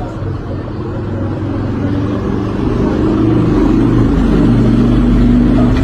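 An engine running steadily, its low hum growing louder about three seconds in.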